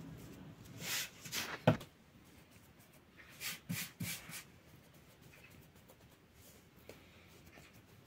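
Hands working soft dough on a wooden board: short rustling handling noises, with one sharp knock a little under two seconds in and a second cluster of rustles and taps around four seconds in.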